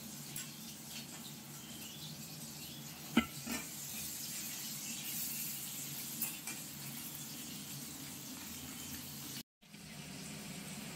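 Tangra fish frying in hot oil in a kadai, a steady sizzle. The oil has been salted to keep it from spattering. A few sharp clicks come about three seconds in and again around six seconds, and the sound cuts out for an instant near the end.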